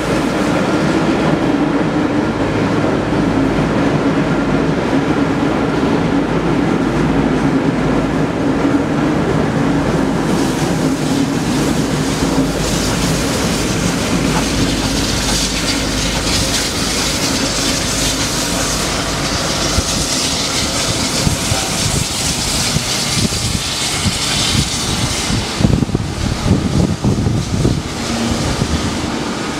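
A train running past on the rails: a steady roar, with the wheels clicking over rail joints, the clicks clearest in the last few seconds.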